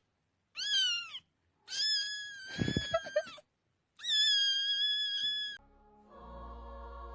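Cat meowing three times as a meme sound clip: a short meow that dips and rises, then two long drawn-out meows, with a few low thuds under the middle one. A sustained musical chord comes in near the end.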